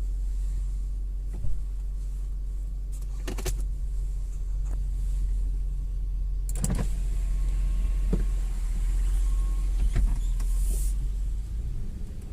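2001 Audi A8L on the move with a steady low rumble, broken by about six sharp, irregularly spaced clicks and knocks as it goes over bumps. This is the clicking on bumps that is the car's reported fault.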